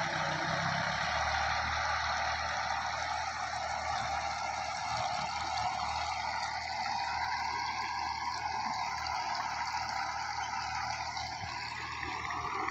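New Holland 3630 tractor engine running steadily under load, with a steady hiss over it.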